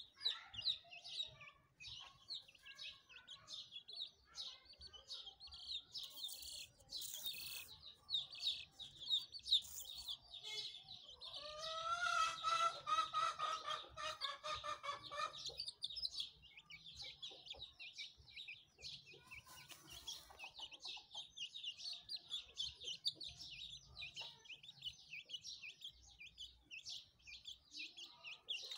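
Chickens dust-bathing: rapid high chirping peeps go on throughout, and about twelve seconds in a lower drawn-out chicken call lasts some three seconds. Short rustling scrapes of dry dirt come about six, ten and twenty seconds in.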